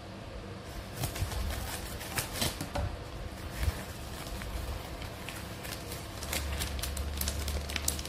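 Plastic packaging crinkling and rustling in the hands, with irregular sharp crackles as the parcel is opened.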